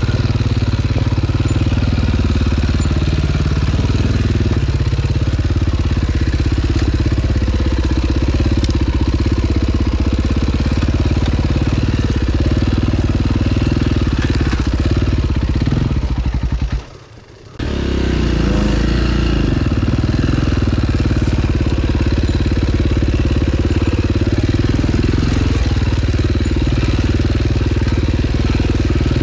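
2009 KTM 530 EXC's single-cylinder four-stroke engine running steadily. The sound drops away for under a second a little past halfway, then comes back.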